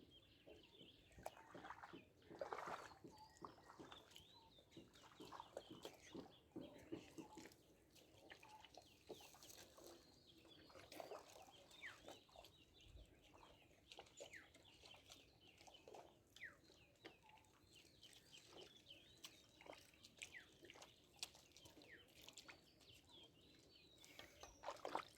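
Faint, scattered short bird calls and clicks, like fowl clucking, over a quiet background, a little louder about two and a half seconds in.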